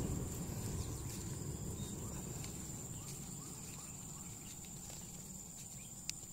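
A plastic compression fitting on black poly pipe being twisted tight by hand, with low rubbing and handling noise that fades, and one sharp click about six seconds in. A steady high insect buzz runs underneath.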